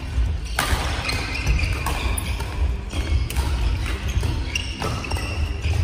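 Badminton rally: rackets strike the shuttlecock four times, about every second and a half, with short squeaks of shoes on the wooden court floor between the hits.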